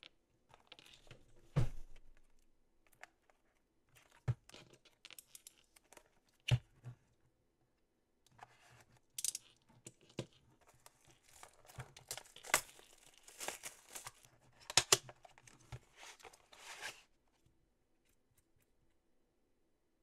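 Plastic shrink-wrap being crinkled and torn off a cardboard box of gel polish, with a few sharp taps and knocks of the box being handled. The crackling tearing is heaviest from about halfway through and stops a few seconds before the end.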